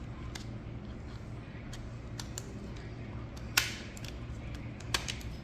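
Small clicks and knocks of a 2.5-inch SATA SSD being handled and fitted into its drive bracket, with one sharp click about three and a half seconds in and another near the end, over a low steady hum.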